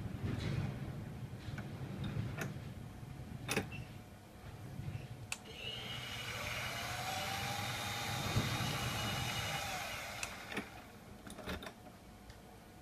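Drill press motor starting about five seconds in, running steadily for around five seconds as it drills a hole through a piece of polyurethane rod, then spinning down. Sharp clicks and knocks of the vise and workpiece being handled come before and after it.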